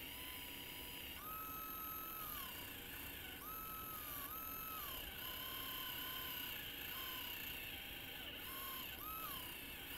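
Small electric motor of an HO-scale diecast steam locomotive whining as it spins the driving wheels against a track-cleaning pad. The pitch steps up and down between two levels several times as the load on the wheels changes.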